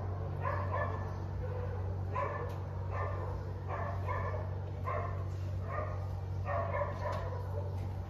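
A dog barking over and over, short barks about once or twice a second, over a steady low hum.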